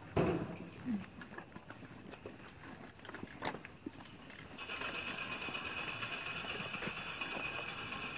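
A couple of sharp knocks about a second apart, a few lighter clicks, then from about halfway a steady, continuous rattling clatter.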